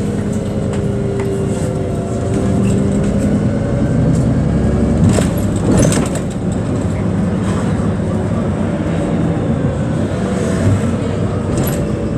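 City bus driving, heard from inside the passenger cabin: a steady engine and road drone whose pitch slowly shifts, with a few knocks and rattles about halfway through.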